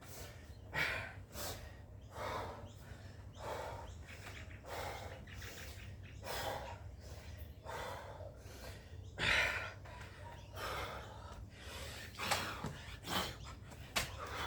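A person breathing hard and fast from exercise exertion, a sharp breath roughly every second.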